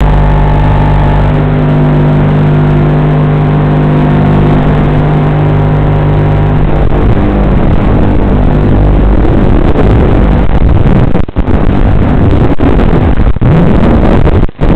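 FPV racing quadcopter's motors and propellers heard through its onboard microphone: a steady hum of several tones for about the first seven seconds, then a loud rushing noise once it throttles up and flies, cut by a few brief dropouts near the end.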